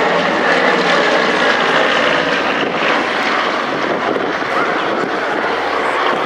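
Twin Pratt & Whitney R-1830 Twin Wasp radial engines of a Consolidated PBY-5A Catalina flying boat running as it flies past low. The engine note drops slightly in pitch and fades a little toward the end.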